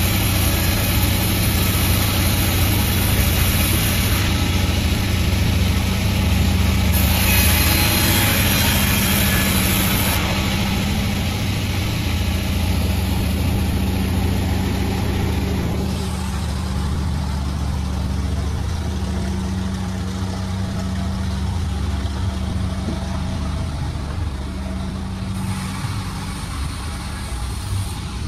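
Panda36 sawmill running: a steady low machine drone with a hissing higher layer that rises and falls a few times.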